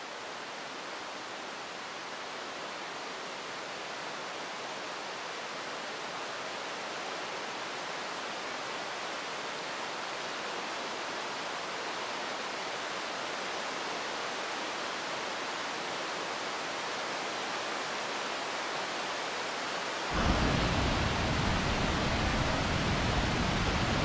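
Seasonal monsoon waterfall rushing in a steady hiss that slowly grows louder. About twenty seconds in it turns suddenly louder and deeper.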